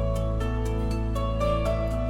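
Background music: soft, gentle new-age style with held notes over a steady low bass and a light regular tick.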